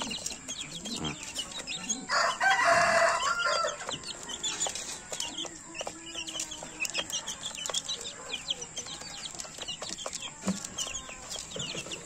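Native chicken chicks peeping in a stream of short high cheeps, with small ticks of beaks pecking at crumbled feed. About two seconds in, a louder rooster crow rings out for a second or so.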